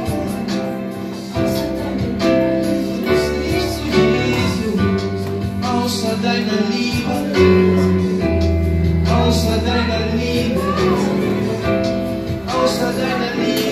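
Live worship music: a band with drums and bass accompanying female singers.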